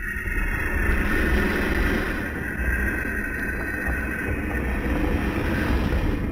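Dragon sound effect: a steady, low rumbling growl that fades out near the end.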